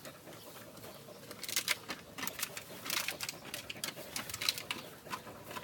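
Dog sniffing and nosing through dry grass at close range: a run of short, irregular crackles and snuffles.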